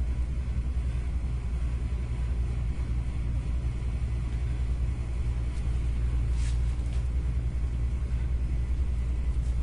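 Steady low rumble of background room noise, with one faint click about six and a half seconds in.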